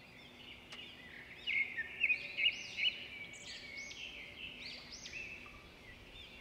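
Small birds chirping and twittering: many quick rising-and-falling chirps overlapping, loudest between about one and a half and three seconds in, over a faint steady hum.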